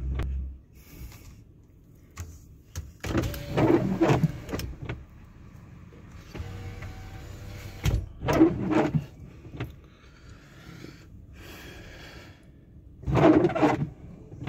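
Windshield wipers sweeping across a rain-wet windshield, their motor whining, in about three passes a few seconds apart, over the steady hum of the car's cabin.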